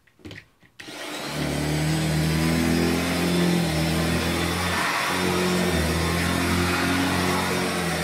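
Hoover Junior 119 upright vacuum cleaner switched on after a couple of small clicks: its motor starts up a little under a second in, runs up to speed, then runs steadily with a droning hum while the cleaner is pushed over carpet.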